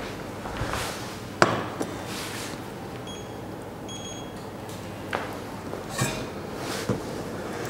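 A few light metallic knocks and clinks of a stainless steel mesh sieve against the rim of a stainless steel stock pot as it is handled and lifted off. A faint steady hiss runs underneath, and two faint short beeps come midway.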